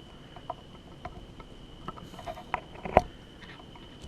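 Small LEGO plastic parts tapping and clicking as pom-pom pieces are fitted onto a minifigure's hands, with one sharper click about three seconds in.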